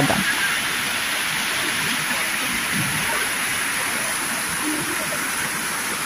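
Steady rush of a rocky stream's water tumbling and splashing over boulders, an even hiss of moving water.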